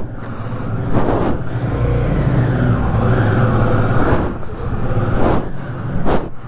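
A motorcycle engine running close by, its pitch rising a little in the middle as it is revved, then settling again.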